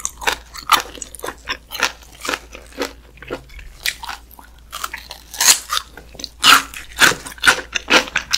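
Close-miked eating sounds: wet, sticky chewing and mouth smacks as a person chews food, a quick run of short clicks with the loudest ones about five and six and a half seconds in.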